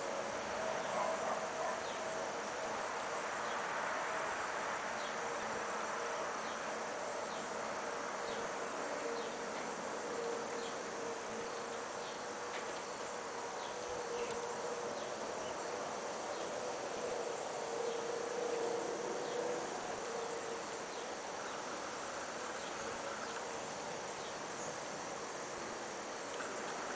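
Steady drone of insects in the field, with a faint steady hum that swells in the middle.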